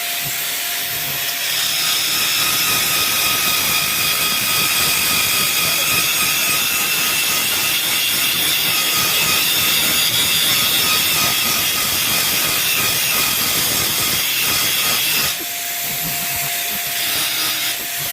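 TIG (GTAW) welding arc running steadily on pipe as the torch cup is walked along the joint: a continuous hiss with faint high whining tones. It drops off a little about fifteen seconds in.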